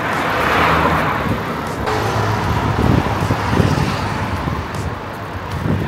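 Road traffic passing, swelling loudest about a second in, mixed with wind rumbling on the microphone of a moving bicycle.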